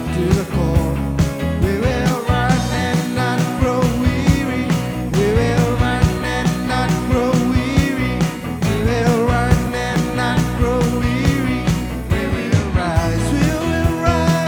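Worship music with a band: drums keeping a steady beat under bass and a gliding melody line, without words.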